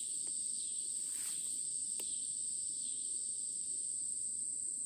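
Steady high-pitched chirring of insects, with a couple of faint clicks.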